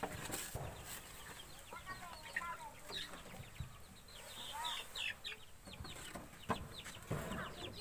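Young chickens in a wooden brooder pen chirping and clucking in many short calls as they are handled, with a few knocks of the pen's wooden boards.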